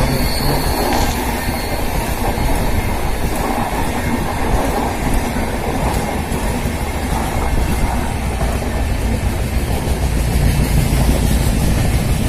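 A passenger train of LHB coaches rolling past: a steady rumble of steel wheels on the rails with the clatter of wheels over rail joints.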